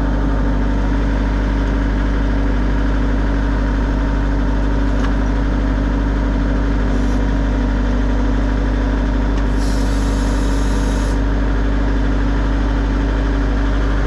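UHI compact tractor's engine running steadily at about 1500 rpm, driving the backhoe attachment's PTO hydraulic pump as the bucket digs into loose dirt. A brief hiss comes about ten seconds in.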